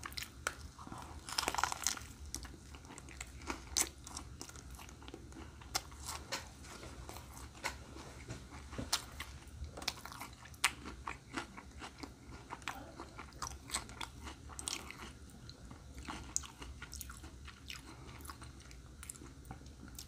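A person biting into a bacon cheeseburger with lettuce and chewing it close to the microphone: a louder bite about a second and a half in, then chewing with many small, irregular crunches and clicks.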